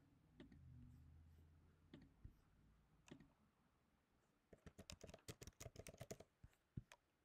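Faint computer keyboard typing: a quick run of key clicks about four and a half seconds in, with a few scattered clicks before it.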